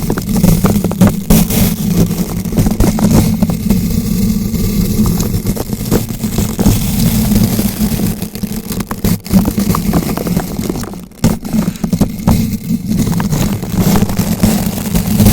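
Bristle brush rubbing and rotating directly against a bare microphone: continuous scratching and crackling over a heavy low rumble, easing off briefly about eleven seconds in.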